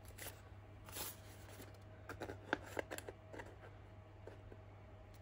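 Kraft paper and a handheld plastic corner-rounder punch being handled: a soft paper rustle and a few light clicks and ticks as the paper corner is fitted into the punch.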